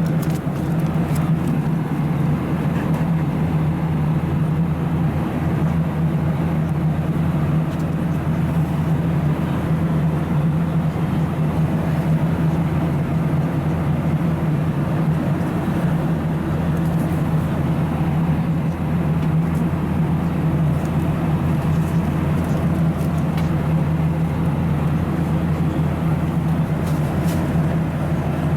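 Steady in-flight cabin drone of a Boeing 737-700, engine and airflow noise with a strong low hum, unchanging throughout.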